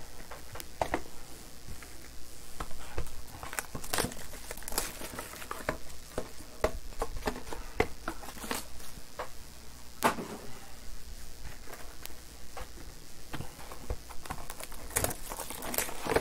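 Trading-card boxes being handled and opened by hand: crinkling wrap and cardboard, with scattered sharp clicks and knocks as the boxes are moved about.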